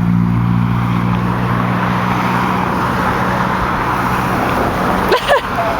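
Road traffic: a motor vehicle's engine giving a steady low hum, with the rushing noise of passing cars growing louder. A brief gliding sound comes a little after five seconds in.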